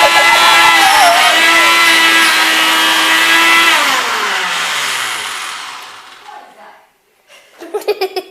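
Kitchen blender motor running at full speed with a steady high whine, switched off about four seconds in and winding down, its pitch falling as it slows to a stop over a couple of seconds.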